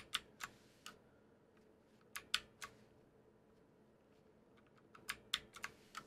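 Keys of a mechanical keyboard with OUTEMU Blue clicky switches being pressed: about three clicks near the start, three more around two seconds in, and a quicker run of about six near the end.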